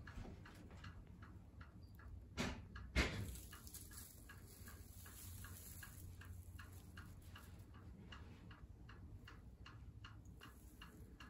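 Two knocks a couple of seconds in, then a faint, even ticking at about three to four ticks a second.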